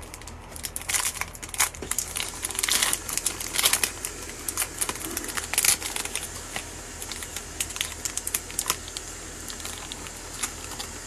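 Foil wrapper of a Panini Chronicles trading card pack crinkling and crackling as hands open and handle it. The crackles come thick through the first half and grow sparser toward the end.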